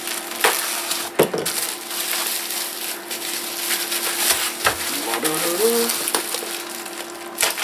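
Plastic bubble wrap crinkling and crackling as it is pulled and peeled by hand off a wrapped package, with a few sharper crackles among the rustle.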